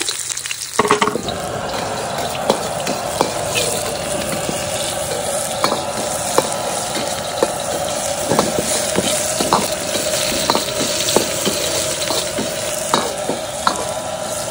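Sliced shallots and garlic sizzling in hot oil in a steel wok, the sizzle starting about a second in, while a steel ladle stirs them with frequent clinks and scrapes against the pan. The aromatics are being fried until fragrant.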